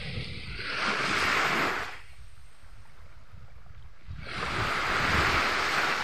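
Small waves breaking and washing up a sandy beach. Two swells of hiss rise and fade: one starts about half a second in, the next about four seconds in, with a quieter lull between.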